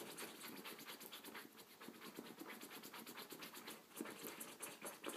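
Two small dogs digging at a fabric cushion with their front paws: rapid, continuous scratching of claws on cloth.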